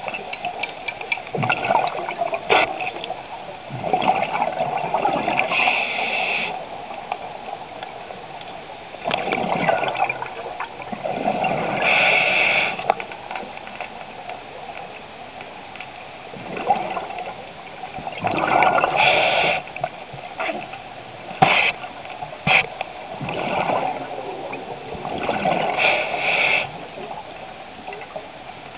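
Scuba regulator breathing heard underwater: a rush of exhaled bubbles about a second long every few seconds, with quieter hiss and a few sharp clicks between.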